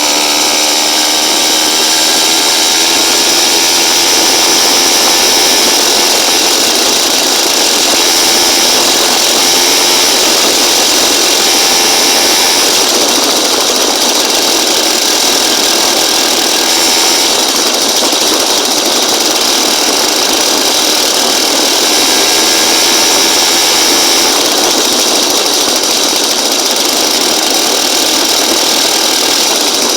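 Small motorized-bicycle engine running continuously at a loud, steady buzz, its pitch drifting a little as the throttle changes.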